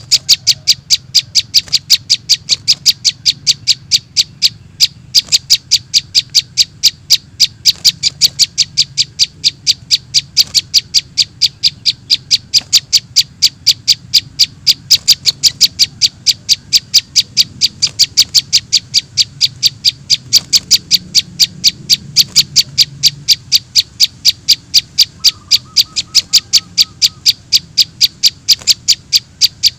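Juvenile prenjak (prinia) begging calls: short, high chirps repeated evenly about three times a second, played as a lure to draw small birds in.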